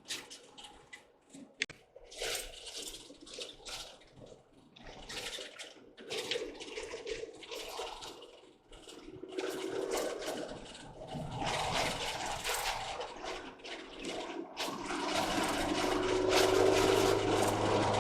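Motorhome on the move, heard from inside: a rushing road noise that comes in uneven surges at first, then grows louder and steadier, with a steady low engine hum joining about three-quarters of the way through.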